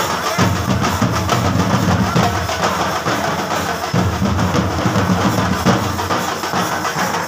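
A street drum group beating large steel-shelled drums with sticks: loud, fast, continuous drumming, strongest in deep low strokes.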